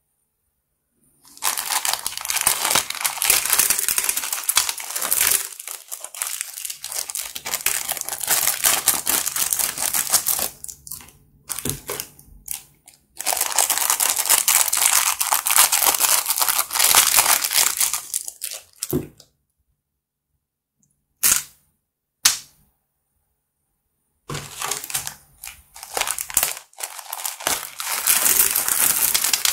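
Small plastic zip bags crinkling as they are handled, opened and emptied of beads and charms, in three long stretches of crackling separated by pauses, with two short sharp clicks in the second pause.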